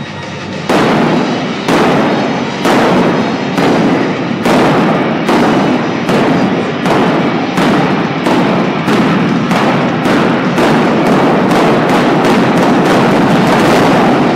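Pyrotechnic flame cannons on an ice rink firing a series of blasts, about one a second at first and quickening to two or three a second near the end.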